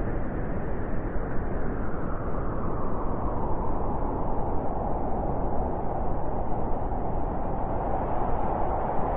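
Winter wind blowing in a steady, dense rush with no breaks.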